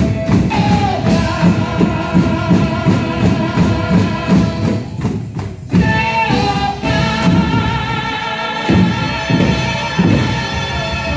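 Worship band music: tambourines shaken and struck in a quick rhythm over a steady beat, with held sung or played notes above, and a short break about five seconds in.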